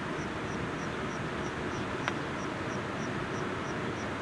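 An insect chirping in an even rhythm, about five short high chirps a second, over a steady outdoor hiss. About two seconds in there is a single light click of chopsticks against a stainless steel dish.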